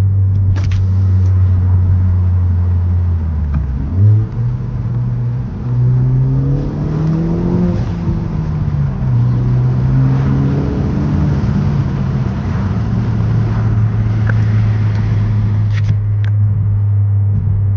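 Kia Forte GT's turbocharged 1.6-litre four-cylinder, breathing through an aFe Takeda Stage 2 cold air intake and MBRP axle-back exhaust, drones steadily at cruise. About four seconds in it revs up sharply and pulls through two rising sweeps with a drop in pitch between them, then settles back to a steady drone.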